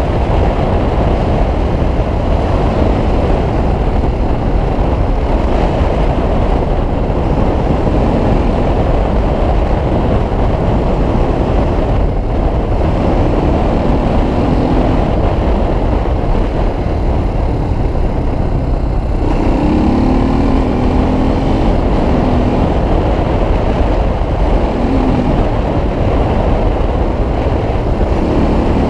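Suzuki DR350's single-cylinder four-stroke engine running as the dirt bike is ridden along a gravel road, under a steady rush of wind noise. The engine note rises and falls with the throttle, most clearly about two-thirds of the way through.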